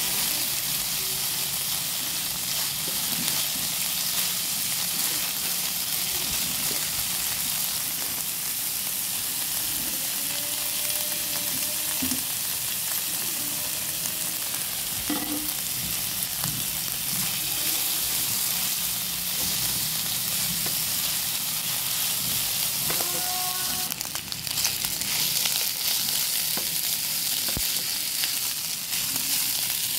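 Food sizzling in a hot nonstick frying pan while it is stir-fried with a plastic spatula, with the spatula stirring and scraping through it. The sizzle dips for a moment about 24 seconds in, then returns louder.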